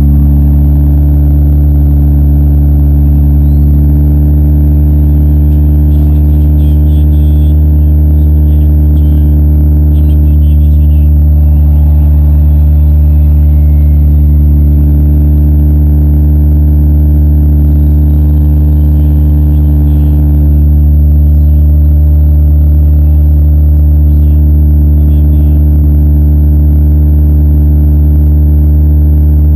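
A demolition derby car's engine running at a steady idle, loud and unchanging, with no revving.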